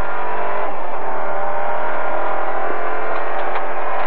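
Fiat Cinquecento Sport rally car's engine running hard, heard onboard, its pitch holding fairly steady.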